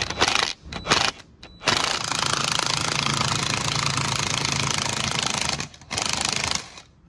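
Cordless impact wrench hammering on the forcing screw of a two-jaw bearing puller, drawing the ball bearing off the rotor shaft of a Tesla Model S drive-unit motor. A few short bursts come first, then a steady run of about four seconds, and one more short burst near the end.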